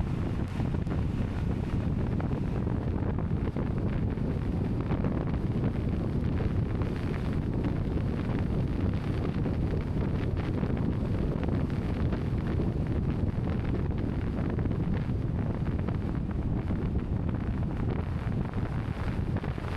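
Steady wind rumbling on the microphone, heavy and low, with no let-up.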